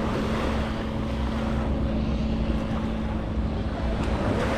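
Boat engine running steadily with a low rumble and a constant hum, fading near the end, over wind on the microphone.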